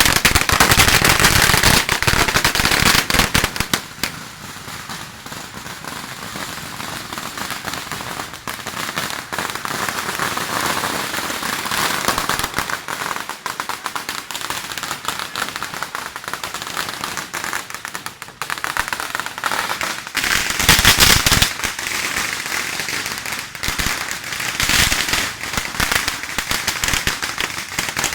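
Strings of firecrackers going off in rapid, continuous crackling. It is loudest for the first few seconds and again in a burst about three-quarters of the way through.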